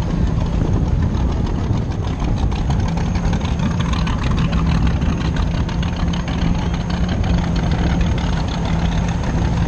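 Yamaha WaveRunner personal watercraft engine running steadily at low speed, a continuous low drone with water rushing and splashing around the hull.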